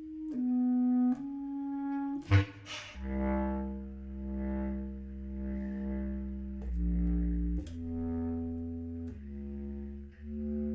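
Solo bass clarinet playing a contemporary piece: a few held notes, a short loud noisy accent about two seconds in, then low sustained notes that swell and fade slowly as the pitch steps down and back up.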